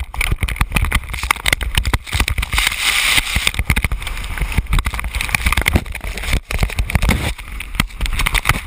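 A skier tumbling down a steep snow slope with a helmet camera: a dense run of knocks and thuds as body, skis and camera strike snow and rock, over a rushing hiss of spraying snow and wind on the microphone, easing off near the end as the fall slows.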